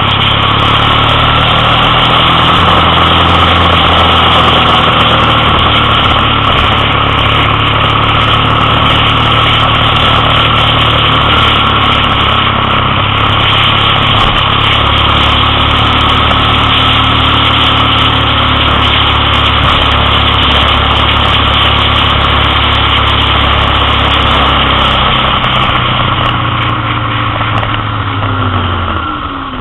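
Motorcycle engine running steadily while riding along, heard from on the bike; near the end its pitch falls and it gets quieter as the bike slows down.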